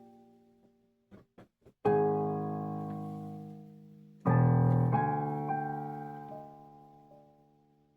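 Piano chords struck one at a time and left to ring out: a chord about two seconds in, another louder one just past four seconds with a note added soon after, each fading away slowly.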